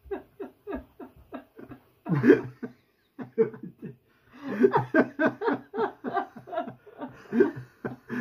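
A person laughing hard in quick repeated bursts, about four a second, with a louder outburst about two seconds in.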